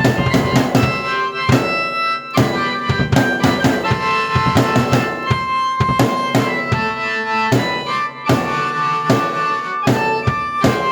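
A drum kit and a keyboard played together by one person: a busy drum beat with sustained keyboard notes held over it, the beat briefly thinning twice.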